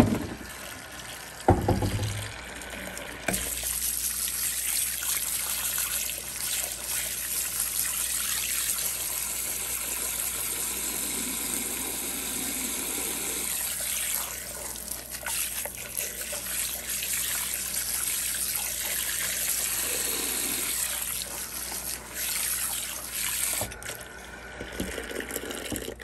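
Kitchen faucet running hard into a sink, filling it with soapy water. The steady flow starts about three seconds in and is turned off near the end, after a couple of thumps at the start.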